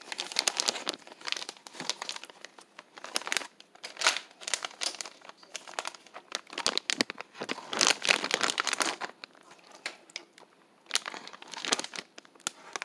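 Plastic crinkling in irregular bursts: a thin plastic food-prep glove and a plastic zip-top bag being handled as raw seasoned chicken wings are moved from the bowl into the bag.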